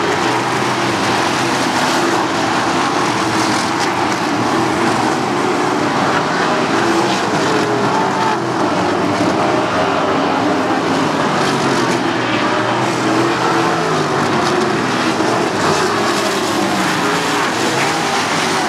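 A pack of 360 sprint cars' V8 engines running hard together, a dense, steady mix of overlapping engine notes whose pitches keep wavering up and down as the cars throttle through the turns.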